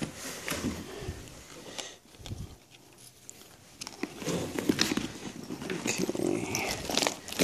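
Cloth helmet bag rustling as it is handled, with scattered light knocks and clicks; the handling dies down briefly about two seconds in and picks up again about four seconds in.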